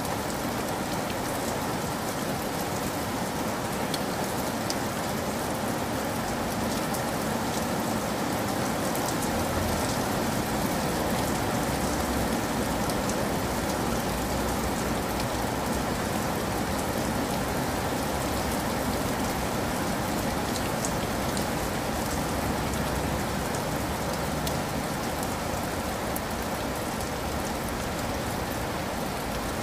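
Steady rain, an even hiss with a scattered patter of drops, played as a sleep-relaxation sound bed.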